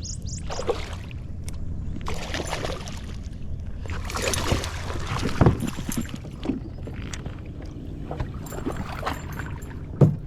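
A hooked bass being reeled to the boat and landed: irregular bursts of splashing water over a steady low hum, and a sharp knock near the end.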